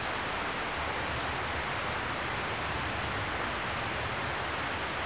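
Steady outdoor background hiss in a spring woodland, with a faint high bird chirp at the very start.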